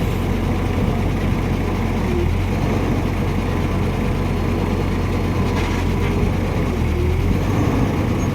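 Heavy diesel engine of earth-moving machinery running steadily, with a deep, even rumble.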